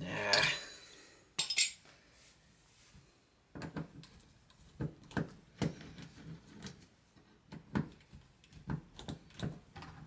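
Metal clinks and light taps of a screwdriver working at a deadbolt's thumb-turn cover plate and mounting hardware, with a louder scraping rattle at the start and irregular single clicks after.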